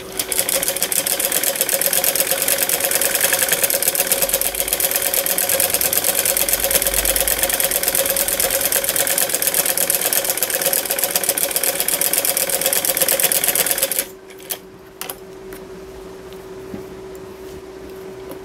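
Sewing machine stitching a seam in a fast, steady run for about fourteen seconds, then stopping abruptly; a few light clicks follow.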